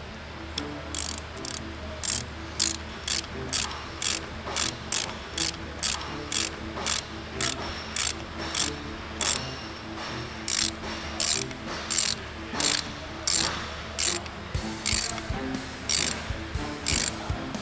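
Hand socket ratchet clicking in quick back-and-forth strokes, about two or three a second, as it runs the keeper bolts in, with a couple of short pauses.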